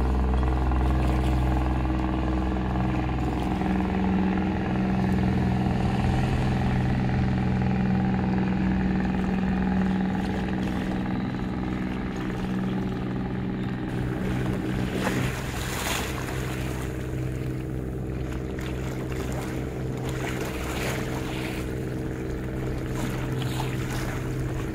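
Small motorboat engine running steadily on a river, a constant low hum. Water splashes now and then in the second half.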